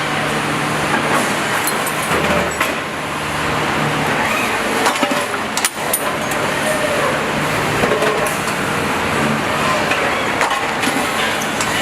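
Factory floor machinery noise: a steady low hum under a dense hiss, with scattered clicks and clanks.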